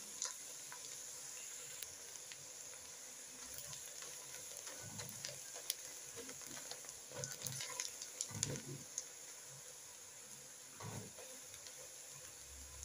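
Sliced onions frying in hot oil, sizzling softly as they brown, with a silicone spatula stirring and scraping against the pot now and then, mostly around the middle and near the end.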